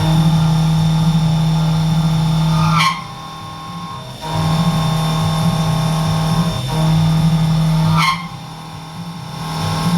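CNC milling machine cutting metal, a steady loud tone from the cutter in the cut. It breaks off about three seconds in and again about eight seconds in, each time with a brief rising whine, and resumes after the first break.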